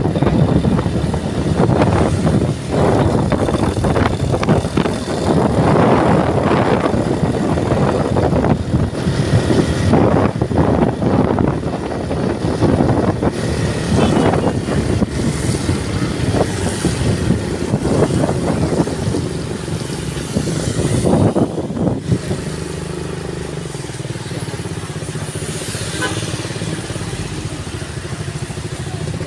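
Motor vehicle on the move, its engine and road noise rising and falling. From about two-thirds of the way through it settles into a steadier, slightly quieter engine hum.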